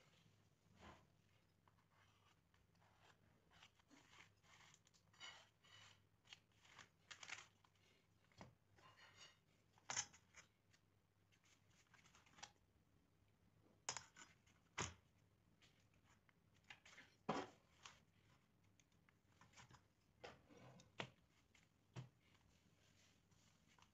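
Faint scratching, rustling and clicking of hands working a steel ruler and a utility knife over a corrugated sheet to mark out a fold pattern, with a few sharper clicks scattered through.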